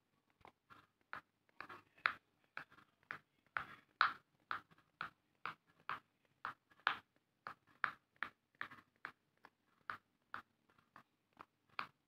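Blue silicone pop-it fidget toys with their bubbles pressed in one after another by fingers: a long run of short, sharp pops, about two to three a second, some much louder than others.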